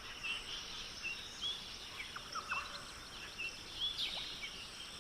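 Background ambience of several birds chirping and whistling in short calls over a steady high hiss. It cuts off suddenly at the end.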